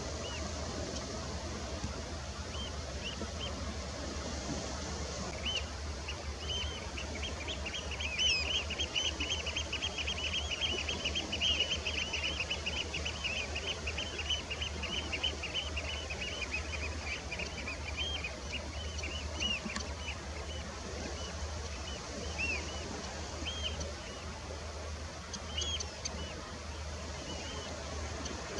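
Flock of red knots calling: many short, clipped calls that build into a dense, overlapping chatter a few seconds in, then thin out to scattered calls in the last third. A steady low hum runs underneath.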